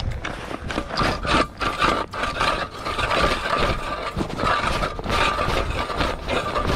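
Hand-cranked ice auger drilling through lake ice: the blades grind and scrape against the ice in repeated strokes as the crank turns.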